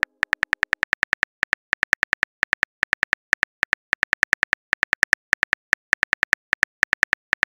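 Phone keyboard typing clicks from a texting-app animation: a short, sharp tap for each letter typed, several a second in quick runs with brief gaps between them.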